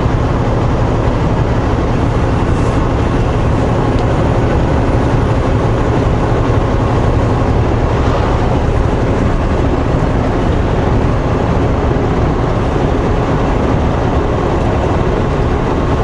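Steady drone of a semi truck's diesel engine and tyre noise heard inside the cab while cruising at highway speed.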